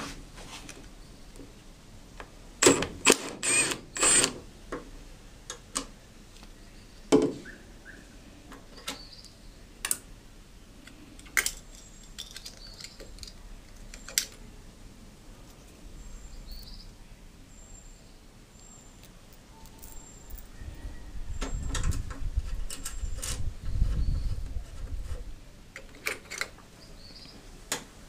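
Metal hand tools and bolts clinking and clattering as bolts are worked on by hand, with a cluster of sharp clanks a few seconds in. A stretch of low rumbling handling noise comes about three-quarters of the way through.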